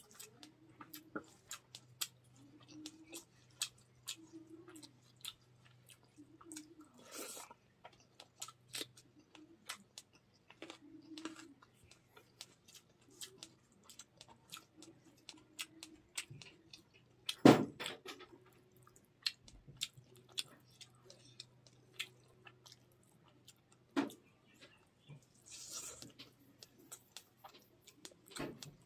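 Close-miked mukbang eating sounds: chewing with wet mouth clicks and lip smacks as rice and fish curry are eaten by hand. A faint low hum runs underneath, and a single sharp knock, the loudest sound, comes about two-thirds of the way through.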